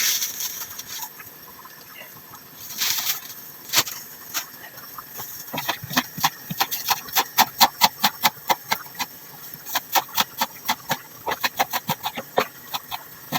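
A kitchen knife chopping on a cutting board: after a brief hiss, a fast, uneven run of sharp knocks starts about five seconds in, at about four or five a second.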